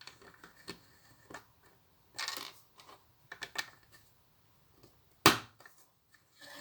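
Plastic Lego pieces being handled: a string of small clicks and scrapes, a short rustle about two seconds in, and one loud sharp click a little past five seconds.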